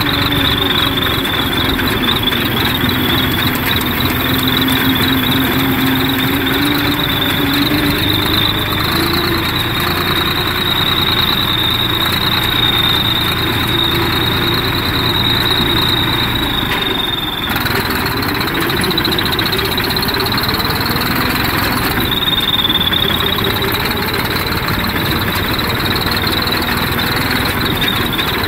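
Massey Ferguson 241 tractor's three-cylinder diesel engine running steadily while driving, heard through an aftermarket "turbo" silencer on its upright exhaust pipe. A loud, even drone with a high whine held above it.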